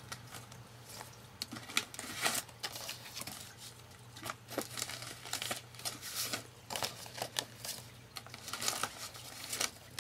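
Irregular rustling, crinkling and light clicks of papers and plastic craft supplies being handled and shuffled, over a low steady hum.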